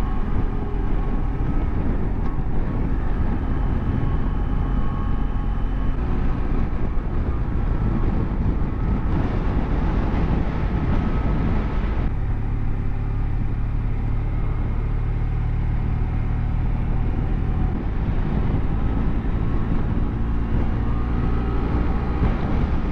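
BMW F700GS motorcycle's parallel-twin engine running steadily under way at low road speed, its note shifting about twelve seconds in.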